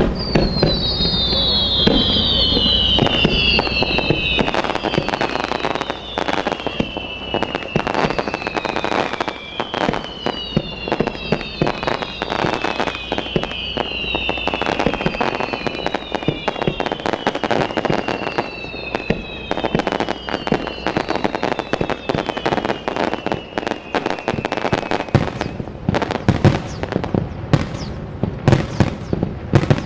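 Fireworks display: a long run of overlapping whistles, each falling in pitch, over a dense crackle of small bursts. Louder separate bangs come near the end.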